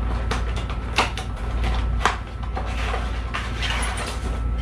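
Packaging being handled and pulled open: several sharp clicks and knocks, then a stretch of rustling, over a steady low hum.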